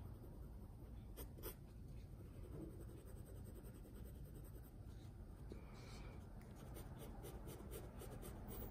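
Faint scratching of a hard 2H graphite pencil on drawing paper as it lays down lines. It turns into a quick run of short strokes in the last couple of seconds.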